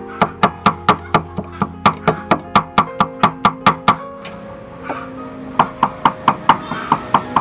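Two cleavers mincing on a round wooden chopping block: rapid, even strikes about four or five a second, with a short break past the middle before they start again. Plucked-guitar background music plays underneath.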